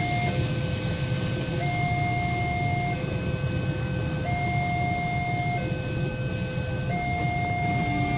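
Railway level-crossing warning siren sounding a two-tone electronic alarm, alternating between a higher and a lower tone, each held for just over a second, warning road users to stop while the barrier is down. Under it runs a steady low rumble of waiting traffic.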